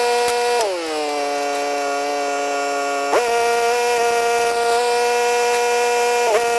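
A power tool's motor running with a steady whine that sags in pitch about half a second in, holds lower for about two and a half seconds as if under load, then snaps back to full speed; it dips briefly once more near the end.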